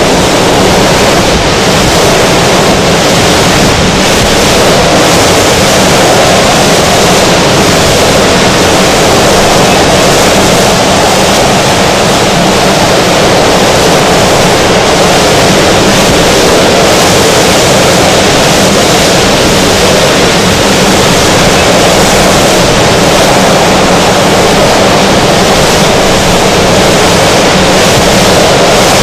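Hurricane-force wind buffeting the camera microphone: a loud, steady rush of wind noise mixed with the storm's surf, unbroken throughout.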